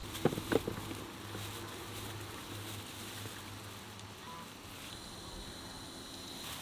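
Bell peppers tipped from a plastic bag into a plastic basin: a quick cluster of about four knocks in the first second, then a faint steady hum.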